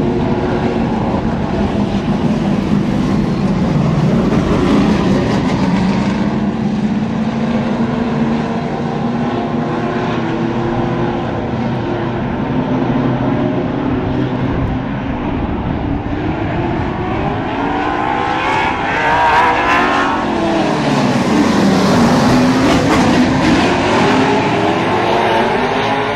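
Outlaw super late model race cars' V8 engines running as the cars circle the track. About three-quarters of the way through, one engine note drops sharply as a car passes close, then climbs again as the engines rev up.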